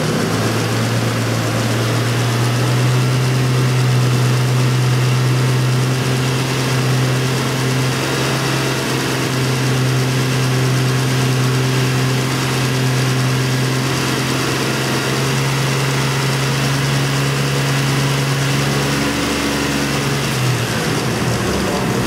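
1999 Ford Ranger V6 engine held at a steady raised speed of about 2,500 rpm, its revs dropping back toward idle near the end.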